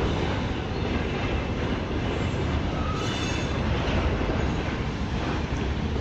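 Freight train wagons rolling past on a railway line, a steady noise that runs without a break.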